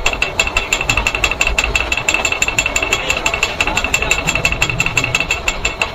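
Fishing boat's machinery running with a steady, rapid mechanical knocking of about eight knocks a second and a high ringing tone pulsing in time, as the net full of fish is hoisted over the deck.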